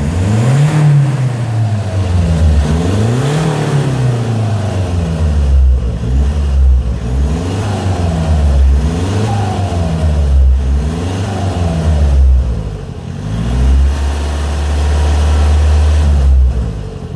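Kia cee'd 128 hp diesel engine being revved over and over, the revs rising and falling roughly every one and a half seconds, then held for a couple of seconds near the end. It has an exhaust gasket leak at the joint after the diesel particulate filter, which is said to show only under plenty of turbo boost.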